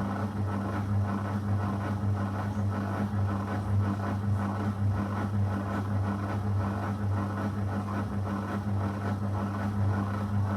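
Zanussi FL984CN front-loading washing machine running through a 35° wash cycle, with a steady low hum.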